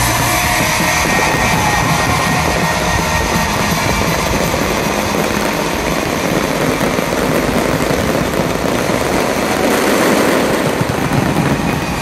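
Aerial fireworks display at its height: many shells bursting over one another, their bangs and crackles merging into a dense, continuous wash of sound.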